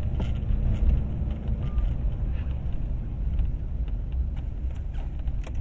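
Steady low rumble of a car's engine and tyres on the road, as picked up by a dashcam mic inside the moving car, with a few faint clicks.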